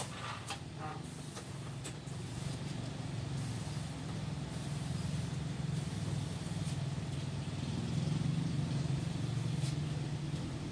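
Motorized disinfectant sprayer's small engine running steadily, driving the pump that feeds the spray wand.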